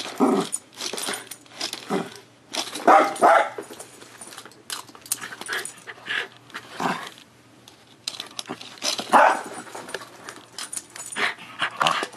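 A small Bichon frise dog giving a string of short, sharp barks in excited play, the loudest about three seconds in and again near nine seconds.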